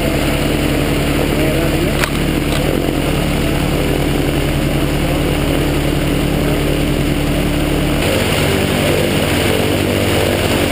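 An AutoGyro gyrocopter's Rotax flat-four engine runs steadily with its pusher propeller while the aircraft taxis. There is a brief click about two seconds in, and the engine note shifts about eight seconds in.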